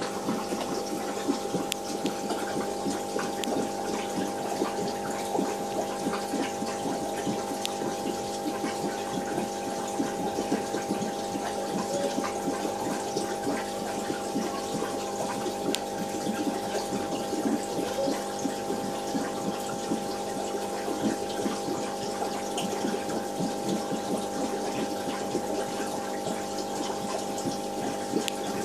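Aquarium pump humming steadily, with constant small bubbling and trickling of water.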